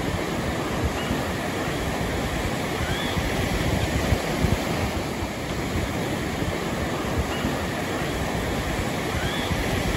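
Ocean surf breaking and washing up a sandy beach, a steady rush with gusts of wind on the microphone.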